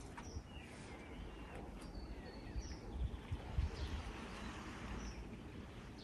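Outdoor ambience: a few short, high bird chirps over a low, uneven rumble, with a couple of louder low thumps a little past the middle.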